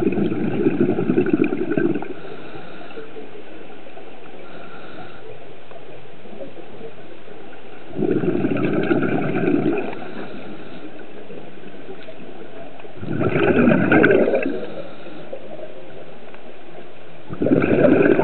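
Scuba diver breathing out through a regulator underwater: exhaled bubbles gurgle in four bursts of one to two seconds, roughly every four to five seconds, over a steady low hiss.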